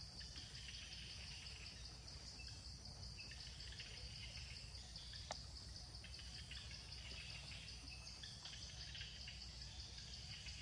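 Faint outdoor ambience: insects keep up a steady high drone with scattered chirps over a low background rumble, and a single sharp click comes about five seconds in.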